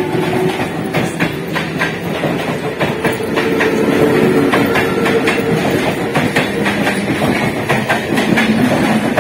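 ICF Medha electric multiple unit local train running past at close range, its wheels clicking and knocking over the rail joints as the coaches roll by.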